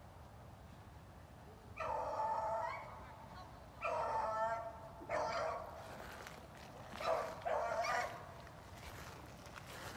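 A beagle baying on the trail of a rabbit: about five drawn-out bays, spaced one to two seconds apart.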